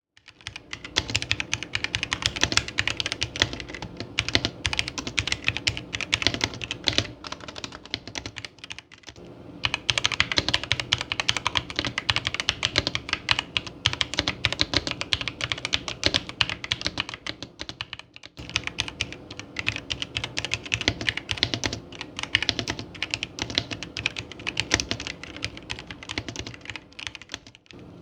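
Fast, continuous typing on a Mucai MK61 mechanical keyboard: a dense run of key clacks, with two short pauses about nine and eighteen seconds in.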